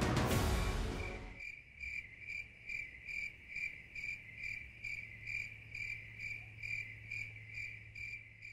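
Background music fading out over the first second and a half, then a cricket chirping in an even rhythm, about two to three high chirps a second, over a faint steady low hum.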